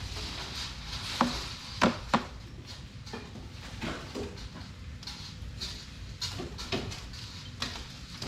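Sharp knocks and clinks of tools and a wood-burning fireplace being handled as the roasting sweet potatoes are checked, the three loudest coming close together between about one and two seconds in. A steady low hiss runs underneath.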